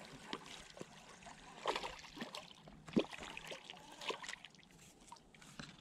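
Small, irregular splashes and dribbling water as a hooked crappie thrashes at the surface while being reeled in, the sharpest splash about three seconds in.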